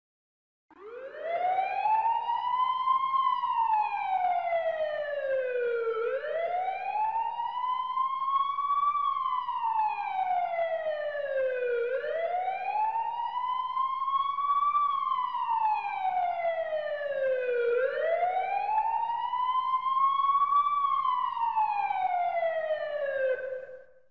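Emergency vehicle siren sounding a slow wail. The pitch rises for about three seconds and falls for about three, four times over. It starts just under a second in and cuts off near the end.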